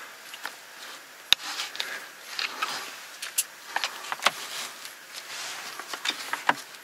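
Scattered light clicks and taps with faint rustling: handling noise from touching and moving things inside a car's cabin. The sharpest clicks come about a second in, and then twice more a few seconds later.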